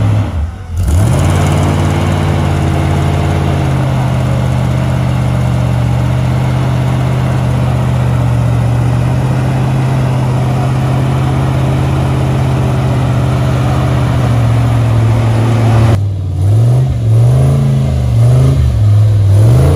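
An off-road 4x4's engine held at steady high revs for about fifteen seconds, then revved up and down in a quick series of throttle blips near the end.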